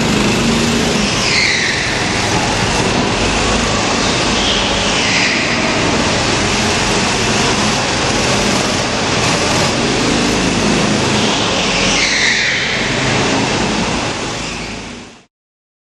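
Mini kart engines running on an indoor track, a loud steady racket with a high whine that falls in pitch three times. The sound fades out quickly near the end.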